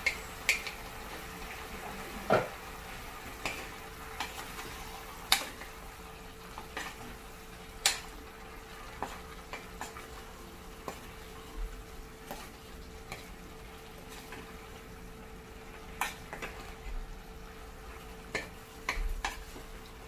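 Wooden spatula stirring chicken, liver and vegetables in a pot, over a faint sizzle of frying, with scattered sharp knocks against the pot, the loudest about two seconds in.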